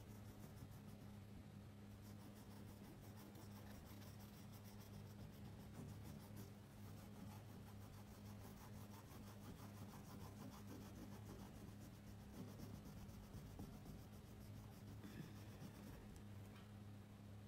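Crayon scribbling quickly back and forth on paper: faint, rapid scratching strokes that start about two seconds in and die away near the end, over a steady low hum.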